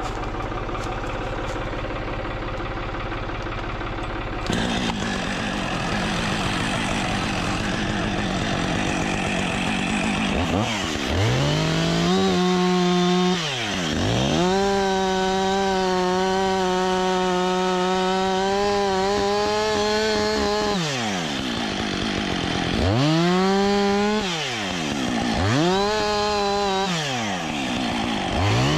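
Two-stroke chainsaw idling, then throttled up about ten seconds in to cut a notch into a tree trunk. The engine note holds steady at full throttle for several seconds, then drops and rises again three times as the throttle is released and squeezed.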